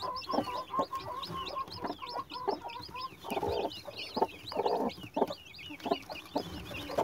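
Newly hatched chicks peeping rapidly and steadily, high short chirps several a second, under the broody hen's low repeated clucks. Two brief rustles come a little past the middle.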